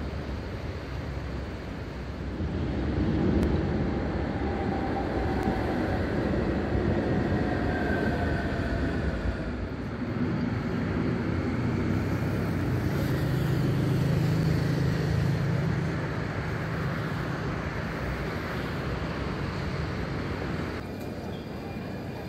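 Electric trams running on elevated track: steady wheel-and-rail rumble with a faint whine that glides in pitch. About ten seconds in the sound changes to a red-and-white GTL8 tram passing, with a steady low hum for a few seconds.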